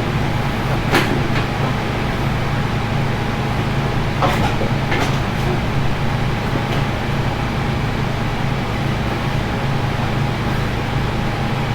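A steady mechanical hum, with a few short sharp clinks about a second in and again around four to five seconds in.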